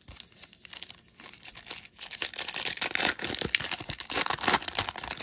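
Foil wrapper of a 2017 Panini Diamond Kings baseball card pack crinkling and tearing open, quiet at first and then much louder from about two seconds in.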